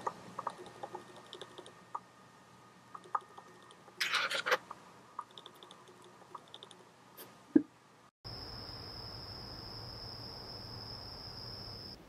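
Budgerigar moving about its wire cage: scattered small clicks and taps, a short loud chirp about four seconds in, soft high chatter, and one sharp knock just before a cut. After the cut comes a steady hiss with a constant high whine.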